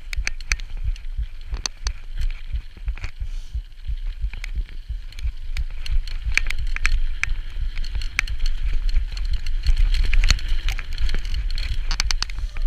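Mountain bike rattling and clattering over a rough trail, with frequent sharp clicks and knocks over a continuous low rumble of the ride and wind on the rider's camera microphone.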